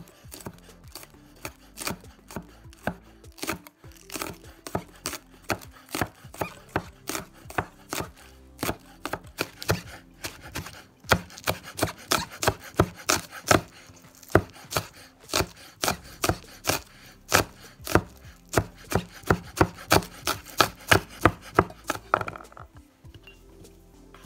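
Kitchen knife with a dimpled blade chopping green onions on a bamboo cutting board: a run of sharp knocks, about two a second at first, quickening to three or four a second about halfway through, then stopping shortly before the end.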